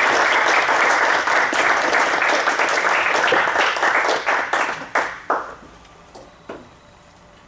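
Audience applauding, a dense run of clapping that thins out to a few last separate claps about five seconds in.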